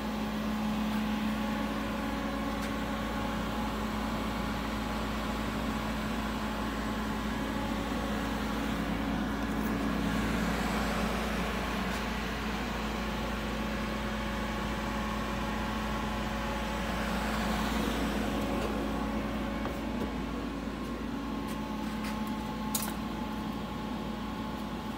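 Anderson CNC router powered up and running: a steady electrical and mechanical hum with a constant drone, and a whirring that swells and fades twice, about ten and eighteen seconds in.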